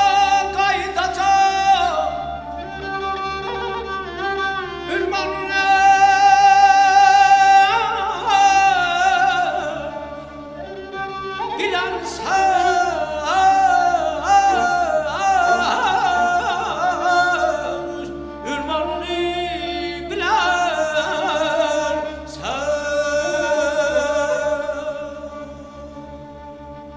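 Mugham singing: a male voice holding long melismatic phrases with rapid, wavering trill-like ornaments, over sustained orchestral accompaniment. The phrases break off a few times and the voice fades near the end.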